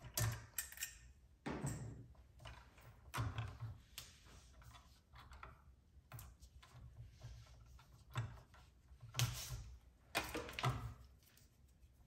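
Scattered clicks, knocks and rustling of a plastic-sheathed electrical cable being handled and worked into a plastic electrical box, at irregular intervals, loudest about nine and ten seconds in.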